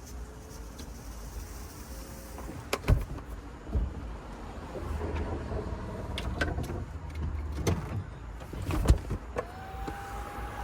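BMW E36 convertible top motors and linkage cycling through the top's reset procedure: electric motors running with several sharp clunks, about three and four seconds in and again near eight and nine seconds, then a steady motor whine that starts near the end.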